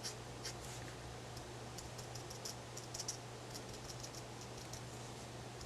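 Light, irregular taps of a pen tip dabbing dots of colour onto a small paper art tile, several taps a second, faint.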